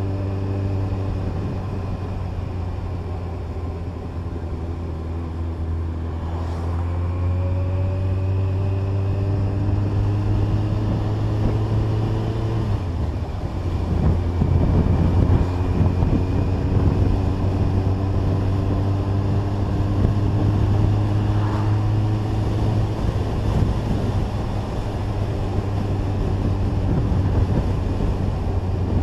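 Kawasaki ZZR1400 inline-four motorcycle under way on the road, its engine note climbing slowly in pitch as it gathers speed over a steady low rumble. The pattern shifts about halfway through.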